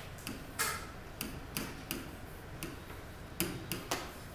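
Stylus pen tip tapping and clicking against the glass of an interactive touchscreen display while numbers are written, in irregular sharp taps about two a second.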